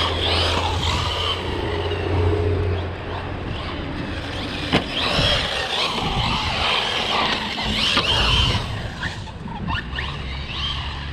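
Electric RC car being driven hard: its motor whine rises and falls with throttle, mixed with tyre scrub. Two sharp knocks come from the car hitting or landing, about five and eight seconds in.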